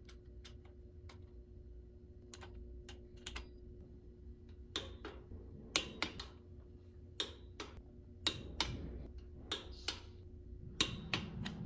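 Click-type torque wrench tightening the rocker cover bolts on a Harley-Davidson Twin Cam engine in quarter turns. It gives a dozen or so sharp metallic clicks at uneven spacing as the wrench ratchets and breaks over at its set torque.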